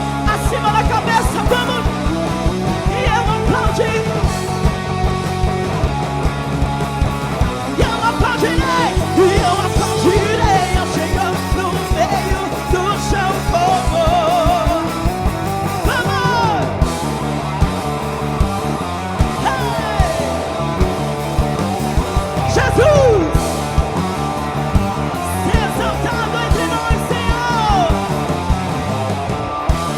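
Live band playing an upbeat rock-style worship song with a steady drum beat and bass, with some singing and shouts over it.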